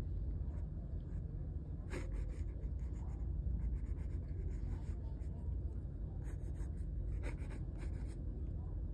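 Pencil scratching on paper in short sketching strokes, a few of them about two seconds in and a cluster in the second half, over a steady low rumble.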